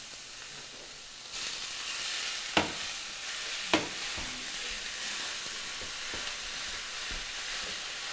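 Ground deer meat sizzling as it fries with onions in a hot cast-iron skillet. The sizzle gets louder about a second and a half in, as the meat goes into the pan. There are two sharp clacks of a utensil against the skillet as the meat is broken up.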